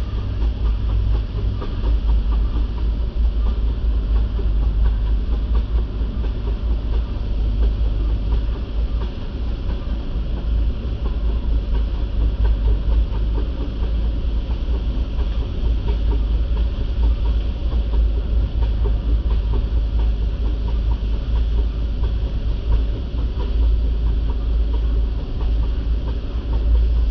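Rice combine harvester running steadily as it cuts, an unbroken loud mechanical rumble with a heavy low drone.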